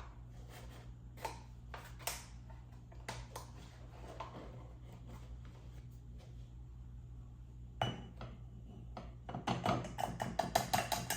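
Light clinks and knocks of a measuring cup against kitchen ware while a quarter cup of flour is scooped and tipped into a mug, ending in a quick run of taps.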